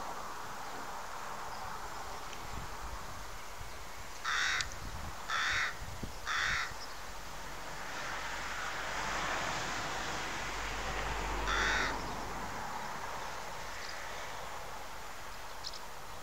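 A bird calling with harsh caws: three in quick succession about a second apart, then one more several seconds later, over steady background noise.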